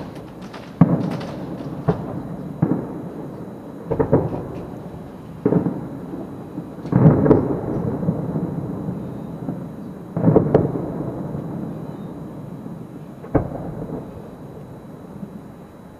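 Fireworks aerial shells bursting in a series of about ten dull booms, spaced a second or a few seconds apart, each trailing off in a rumble. The heaviest come around seven and ten seconds in.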